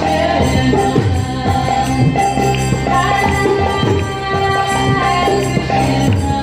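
Live devotional kirtan music: a harmonium holds steady chords while a mridanga drum keeps a driving rhythm, and voices sing the chant.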